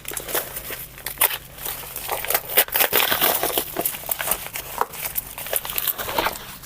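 Packaging crinkling and rustling as a parcel is unwrapped by hand, a busy run of irregular crackles.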